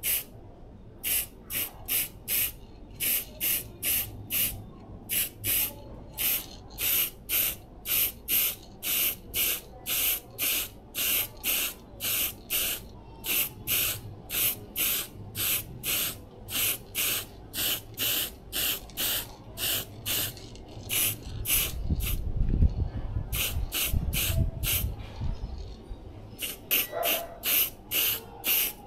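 Aerosol spray-paint can spraying matte black paint in short repeated hissing bursts, about two a second. About three-quarters through, the spraying pauses for a few seconds and a louder low rumble takes over before the bursts start again.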